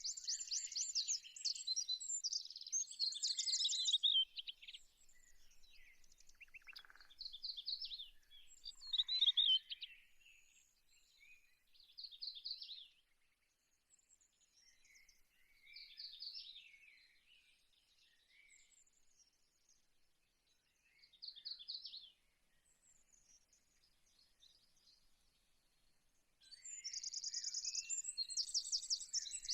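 Small birds chirping and singing in high, rapid trills, dense at the start, sparser through the middle, and dense again near the end.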